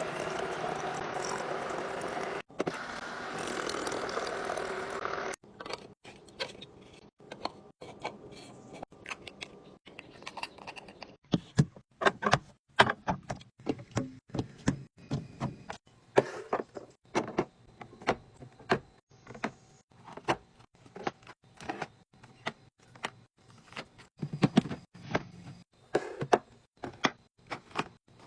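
A steady rushing noise for about the first five seconds, then a long run of quick clicks, taps and knocks of containers and packaging being handled and set down while a fridge is restocked.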